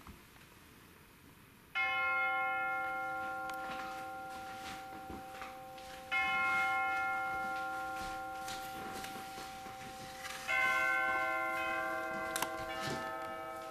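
Bell-like chimes: a chord of several ringing tones struck three times, about four seconds apart, each ringing on and slowly fading.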